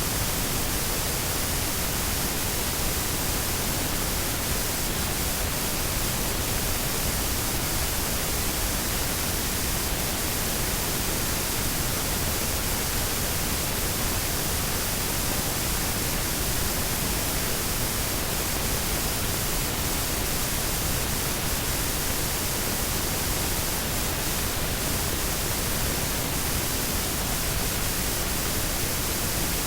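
Washing machine running: a steady, even hiss-like noise with no rhythm or changes.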